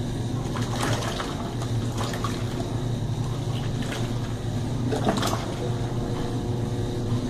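Colormaq Pioneer tanquinho (semi-automatic washing machine) agitating a load of clothes in soapy water: churning, sloshing water with splashes over a steady low hum.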